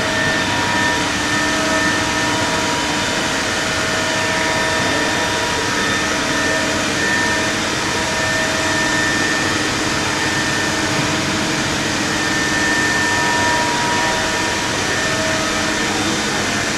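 Spindle motors of a six-head CNC router running together: a steady hiss overlaid with several steady whining tones that fade in and out.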